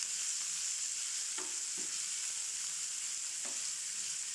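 Chopped onions sizzling steadily in hot oil in a frying pan as they are sautéed, with a few light knocks of a wooden spatula against the pan as they are stirred.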